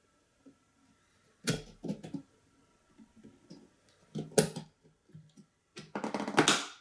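Hands handling DDR5 RAM modules and pressing them into motherboard slots: a few sharp plastic clicks and knocks, the loudest about four and a half seconds in, then about a second of scraping and rustling near the end.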